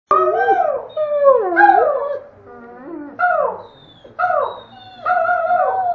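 Doberman howling and "talking": a run of about six short, wavering howls with brief gaps between them, the pitch bending up and down within each.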